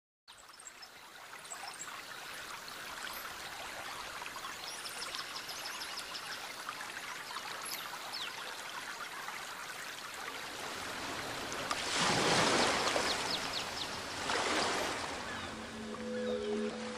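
Steady rush of running water fading in, with scattered high chirps over it. Two louder surges of rushing noise come about two-thirds of the way through, and music tones start near the end.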